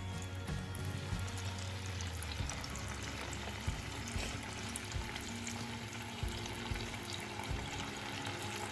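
Battered baby corn sticks deep-frying in hot oil in a wok: a steady sizzle and bubbling, with soft background music.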